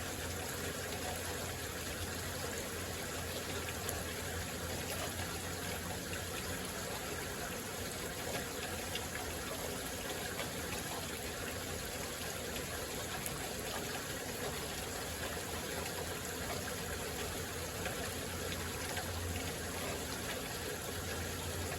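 Heavy rain falling steadily, an even, unbroken wash of noise.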